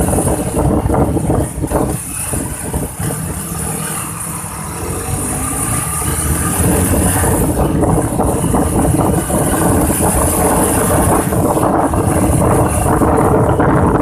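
A motor vehicle's engine runs steadily with road noise, and many small rattles and knocks are mixed in.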